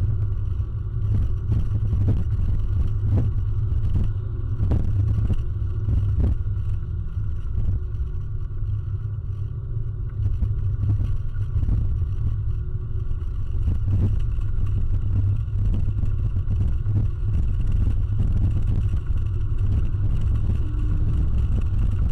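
Inside the cabin of a 2006 Toyota Corolla XRS: steady low engine and road rumble from its 1.8-litre four-cylinder at an even cruising speed, with no hard revving. Occasional short clunks sound over it.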